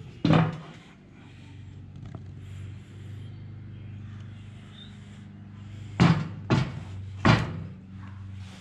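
A plastic BMW three-stage intake manifold being handled and knocked against a metal patio table: one sharp knock just after the start, then three more close together about six to seven seconds in. A steady low hum runs underneath.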